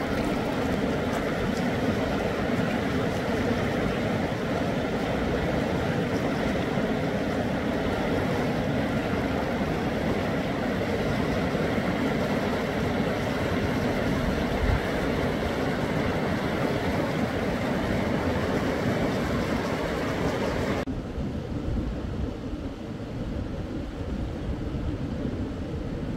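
Fast mountain river rushing over rapids, a steady loud rush of water. About 21 seconds in it cuts off abruptly to a quieter, duller rush.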